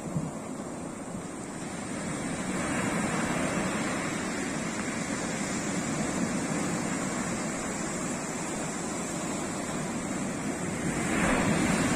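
Surf breaking and washing up a sandy beach, swelling a few seconds in and loudest near the end, with wind rumbling on the microphone.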